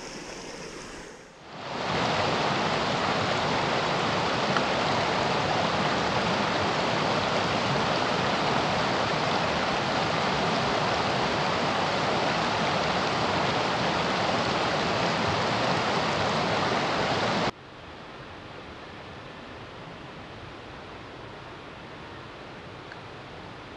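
Creek water rushing over rocks: a loud, even rush through riffles that drops suddenly to a quieter steady flow about two-thirds of the way through.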